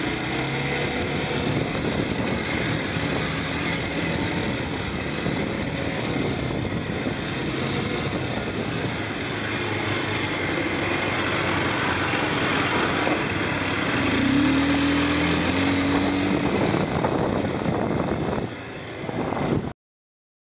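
Quad bike (ATV) engine running as it is ridden along a dirt track. The pitch rises briefly about two-thirds of the way through, and the sound cuts off suddenly near the end.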